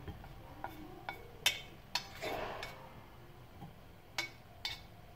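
Wooden chopsticks clicking and scraping against a frying pan and ceramic bowl as cooked stir-fried beef is pushed out of the pan: about seven light, irregular clicks, the sharpest about a second and a half in, and a brief soft scrape of the meat sliding just after two seconds.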